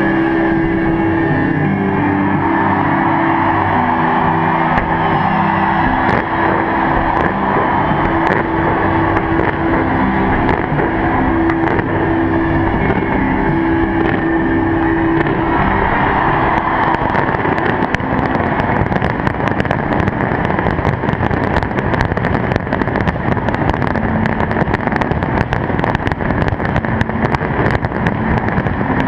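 Fireworks going off in rapid, overlapping bangs and crackles, growing much denser about halfway through, over a loud continuous din.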